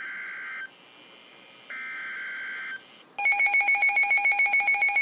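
NOAA Weather Radio emergency alert signal. Two one-second bursts of buzzy digital SAME header data tones sound about a second apart. About three seconds in, a loud pulsing electronic alert alarm begins, beeping about five times a second, marking the start of a flood warning.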